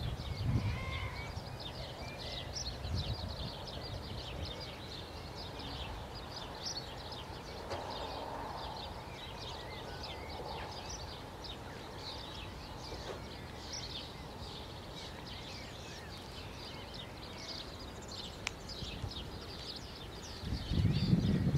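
Small songbirds chirping steadily in the surrounding trees, many short high calls overlapping, over a faint outdoor hiss. A louder low rumble comes in about a second before the end.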